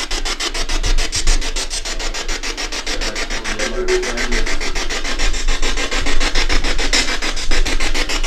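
Ghost box (spirit box) radio sweeping through stations, a loud rapid chatter of static chopped into short even bursts many times a second.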